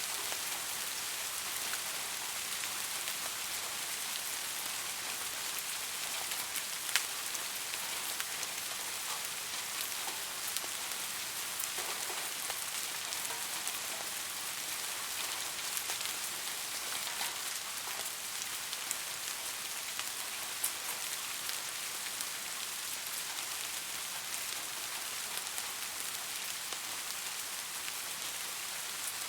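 Steady rain falling, an even hiss with scattered close drops ticking sharply on a surface, one louder drop about seven seconds in.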